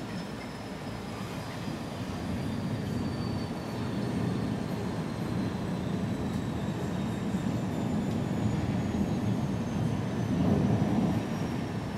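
Distant thunder rolling: a long low rumble that swells over several seconds and is loudest near the end.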